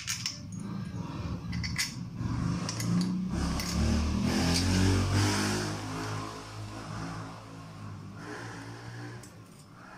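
A motor vehicle's engine passing by, swelling to its loudest about four to five seconds in and then fading away. Light metallic clinks of loose bolts being handled come over it near the start.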